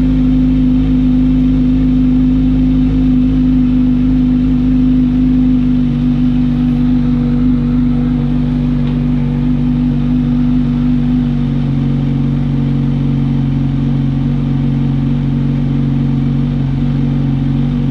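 Kawasaki Ninja 1000's inline-four engine idling steadily through a freshly fitted SC Project titanium slip-on exhaust, its note easing slightly lower in pitch twice.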